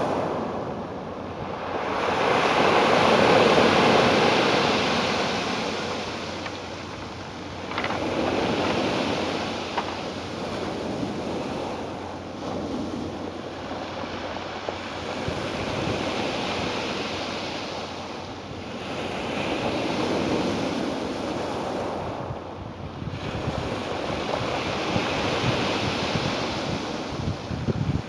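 Ocean waves breaking and washing ashore: a steady wash of surf that swells and ebbs every few seconds, with the biggest surge a few seconds in.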